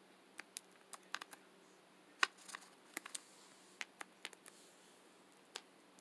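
Cockatiel making irregular sharp clicks and taps, about fifteen scattered through a few seconds, the loudest a little past two seconds in.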